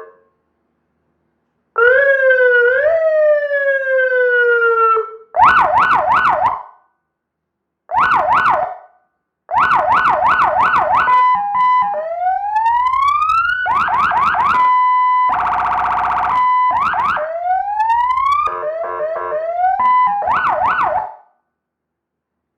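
A 200 W electronic emergency siren through its horn speaker, stepping through several tones with short gaps: a slow falling wail, fast warbling yelps, repeated rising sweeps, a two-tone high-low, and a buzzy steady horn blast about 15 seconds in. It stops about a second before the end.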